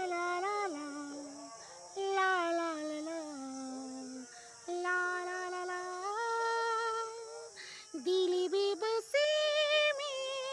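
A man singing a wordless melody in a high falsetto, imitating a female playback singer's voice, in phrases of long held notes that step downward, with a run of short quick notes near the end.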